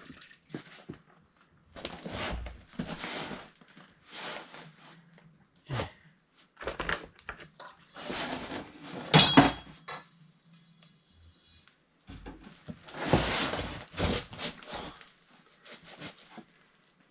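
Plumbing tools and metal pipe parts being handled: scattered clinks and knocks, a sharp clink about nine seconds in, and stretches of scraping and rustling.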